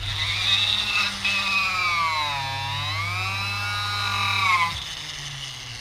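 Vevor 780W flex shaft grinder running as it carves wood, with a high motor whine over a steady low hum. Its pitch dips about halfway through and climbs back as the speed is changed on the foot pedal, then falls away near the end.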